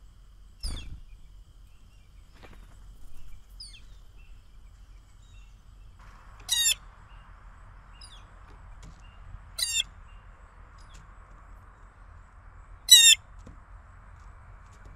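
Blue jay giving three loud, harsh calls spaced about three seconds apart in the second half. Faint high chirps from smaller birds come before them, and a single soft knock sounds near the start.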